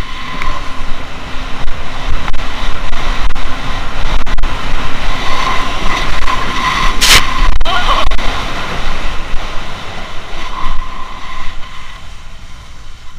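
Jet ski engine running at speed over choppy water, mixed with rushing water and spray. There is a single sharp knock about seven seconds in, and the sound eases off over the last few seconds.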